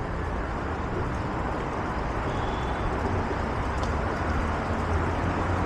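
Steady city street noise with a low rumble of road traffic passing.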